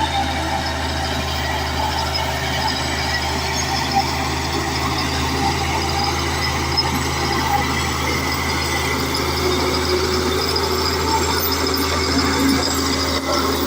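Large bulldozer's diesel engine running steadily at a constant pitch, with a few faint clanks scattered through it.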